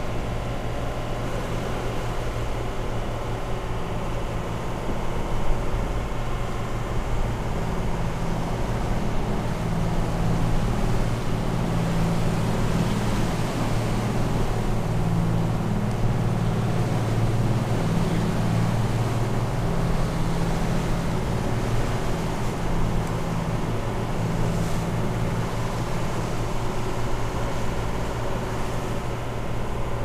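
Ocean Yachts cockpit motor yacht's engines running steadily underway, a constant low drone, with water rushing along the hull.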